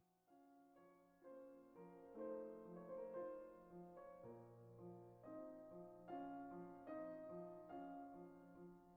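Soft background piano music, a gentle melody of chords moving at an even pace over a sustained low note.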